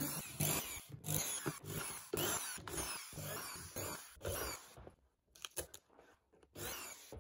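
Power drill-driver backing screws out of a plywood crate lid, the motor running in a series of short bursts with brief pauses. Then a few light clicks and knocks, and one more short burst near the end, as the loosened screws are handled.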